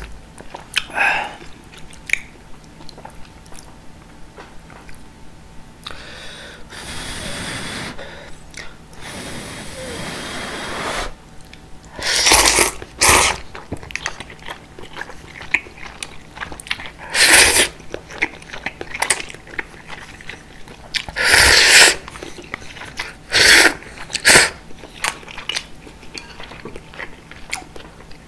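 Close-miked slurping of thick udon noodles and broth from a wooden ladle: a longer, softer slurp midway, then several short, loud slurps in the second half, with soft chewing between them.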